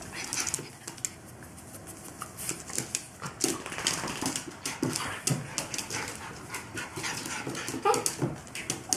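Small dog panting and scampering, its claws clicking on a hardwood floor in quick irregular taps, with a few brief low dog noises.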